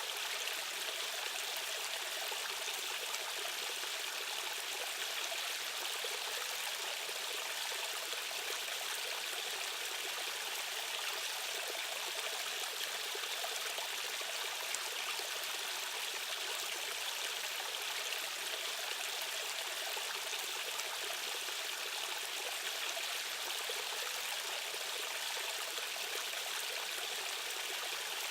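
Water of a stream or small waterfall rushing steadily, with no changes.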